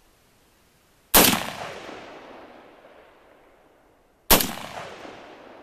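Two rifle shots from a scoped AR-15 in .223/5.56, about three seconds apart. Each sharp crack is followed by a long rolling echo off the surrounding hills that fades over two to three seconds.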